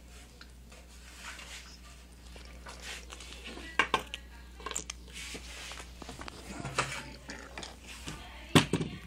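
Handling noise from a phone being moved about by hand: scattered clicks and rubbing, with two sharp knocks, one about four seconds in and the loudest near the end, over a low steady hum.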